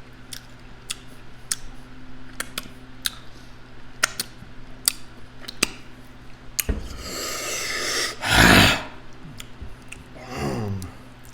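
Close-miked eating of chicken wings and mac and cheese: wet chewing with many sharp mouth clicks and smacks. About eight and a half seconds in comes one loud noisy burst, and near the end a short falling voiced sound from the eater.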